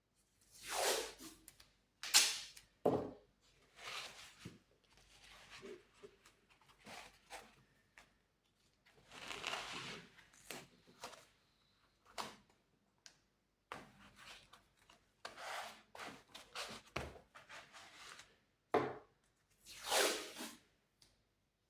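A steel cable tray being handled by hand: a series of short scrapes, rubs and knocks of sheet metal, about a dozen of them with pauses in between.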